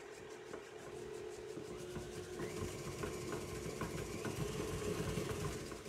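Electric stand mixer running steadily with a level hum, its paddle beating creamed butter and sugar in a metal bowl, with light ticks through it; it stops near the end.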